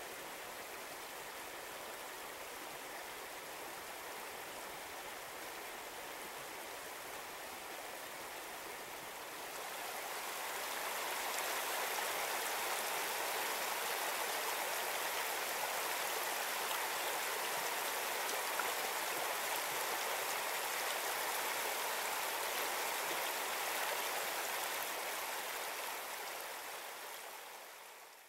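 Shallow creek water rushing and burbling over stones in a riffle, a steady rush that grows louder about a third of the way in and fades out at the end.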